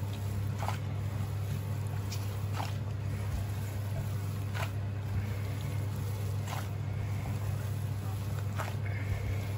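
Gloved hands kneading and squeezing a sticky raw minced-pork and pork-skin mixture in a pan, giving brief squelches about every two seconds. A steady low hum runs underneath and is louder than the squelches.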